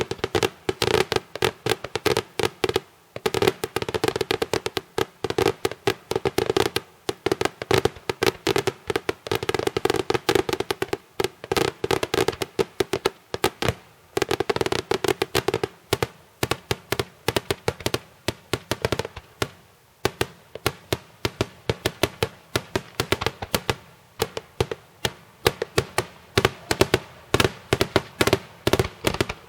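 Daytime festival fireworks: a fast, continuous run of sharp bangs and cracks, several a second, with no break.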